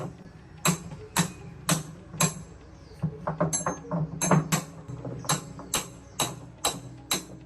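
Repeated sharp metallic strikes, about two a second, each ringing briefly at a high pitch, with a quick flurry of lighter strikes around the middle.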